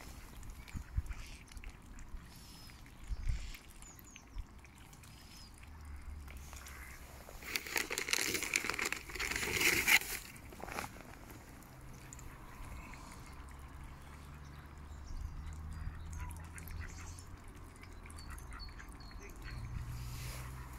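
Mallard ducks quacking, loudest in a harsh burst of a few seconds about midway, with faint high bird chirps and a low steady hum underneath.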